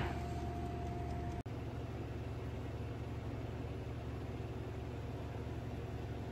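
Steady low hum of a running kitchen appliance, with a light hiss and a faint steady tone that stops about a second and a half in, where the hum briefly breaks off and resumes.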